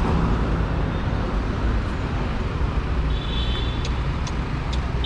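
City street traffic: cars driving past close by, a steady low rumble. About three seconds in comes a brief high chirp, then light clicks at about two to three a second.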